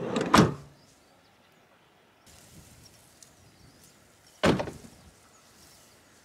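Two heavy thuds about four seconds apart, over a faint outdoor background: the VW T6 van's doors or tailgate being shut as the van is packed up.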